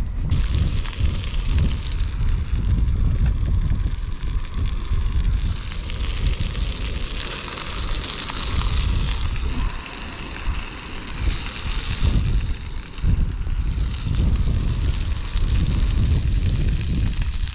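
Wind buffeting the microphone in uneven gusts, over a steady hiss of groper fillets cooking.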